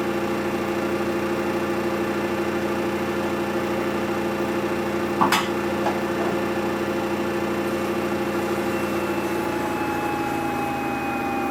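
Samsung washing machine running with a steady motor hum made of several held tones, with one sharp knock about halfway through. Over the last few seconds a whining tone slowly drops in pitch as the machine changes speed.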